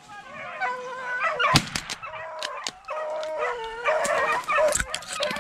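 Beagles baying in long, overlapping bawls as they run a rabbit, with a few sharp snaps of brush breaking.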